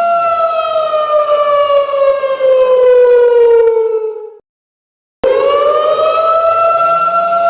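Siren wailing on one steady pitch, then slowly sliding down in pitch for about four seconds. About halfway through it cuts off abruptly into a moment of silence, then starts again and rises quickly back to its steady pitch.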